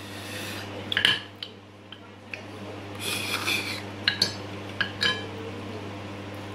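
Light clinks and taps on a plate while food is eaten by hand: one sharp tap about a second in and a quick cluster of them between four and five seconds in, over a low steady hum.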